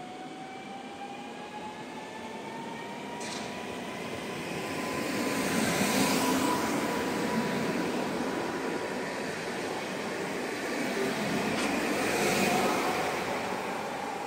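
Newag Impuls 31WE electric multiple unit passing close on the near track. Its traction motors give a whine that rises in pitch over the first few seconds and then holds steady, over wheel and rail noise that swells to a peak mid-way. A second swell of rail noise comes near the end.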